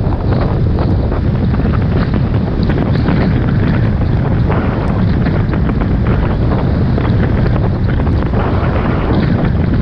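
Wind buffeting the microphone as a snowboard rides fast through deep powder snow, with the hiss and crackle of the board and snow spray over a steady low rumble.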